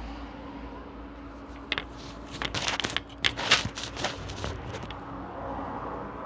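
Towel fabric rustling and scrunching in a quick run of crackly bursts as a rolled-up towel with wet clothes inside is handled and squeezed, with a steady low hum underneath.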